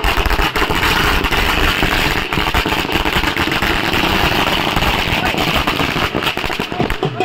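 Firecrackers going off in a fast, continuous crackle of many small bangs, easing off near the end.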